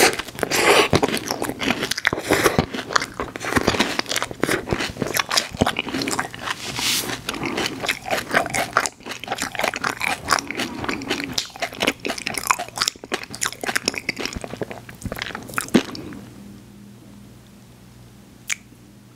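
Close-miked eating sounds: wet smacking, sucking and chewing of a mouthful of McDonald's soft-serve ice cream, stopping about sixteen seconds in. After that only a low room tone remains, with one sharp click near the end.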